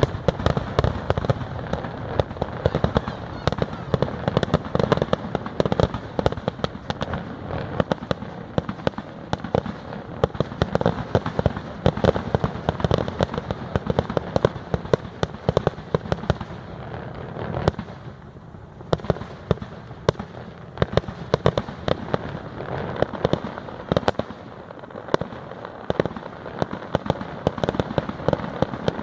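Fireworks display: a dense, continuous barrage of bangs, pops and crackles, easing off briefly about two-thirds of the way through before picking up again.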